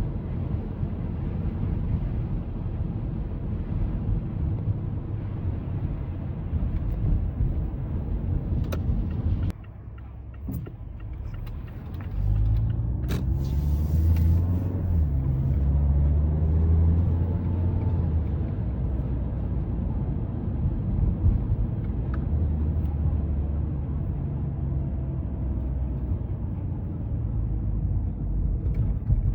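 Mazda 3 driving: steady road and engine rumble. About ten seconds in it eases off briefly, then the engine note climbs as the car accelerates, before settling back to a steady cruise.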